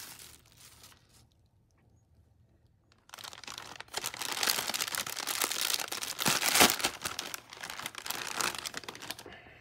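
Clear plastic air-cushion packaging crinkling and rustling as it is handled and pulled open around a bottle. Near quiet from about one to three seconds in, then continuous crinkling, loudest about two-thirds of the way through.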